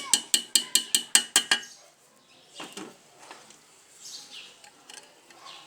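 Rapid metal-on-metal strikes, about six a second, each ringing at the same pitch, stopping about a second and a half in; then fainter scattered knocks.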